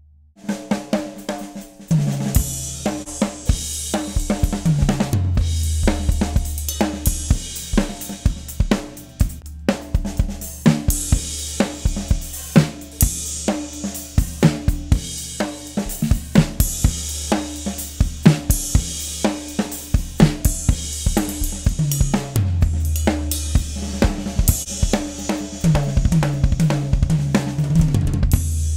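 DW Mini Pro drum kit (16-inch kick, 12-inch snare, small toms) played with sticks in a steady groove, with snare, kick, hi-hat and cymbal hits. Low held notes change pitch now and then underneath the drums.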